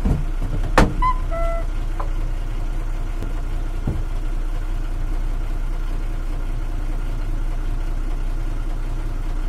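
Truck engine idling steadily, heard from inside the cab, with a sharp knock about a second in and a fainter one near four seconds. A brief high tone sounds just after the first knock.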